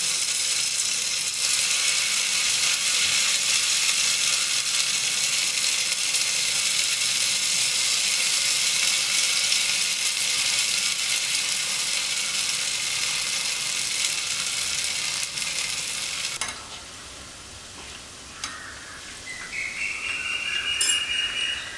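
Vermicelli pakoda batter deep-frying in hot oil in a small pan: a loud, dense sizzle of bubbling oil around the freshly dropped pieces. About three-quarters of the way through, the sizzle drops abruptly to a much quieter level.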